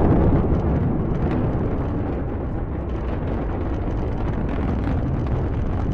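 Steady low rumble of a Falcon 9's nine Merlin engines in powered ascent, a dense even noise with no distinct tones, easing slightly in the first second.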